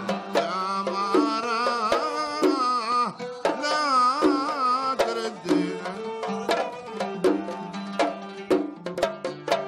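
Instrumental interlude of Omani traditional music: a violin plays a melody with wide vibrato over oud and a steady rhythm on small rope-laced hand drums. About halfway through the violin line drops away and the drum strokes and plucked oud notes carry on alone.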